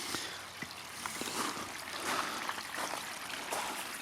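Garden pond stream and waterfall running: a steady trickle and splash of flowing water, with a few faint clicks.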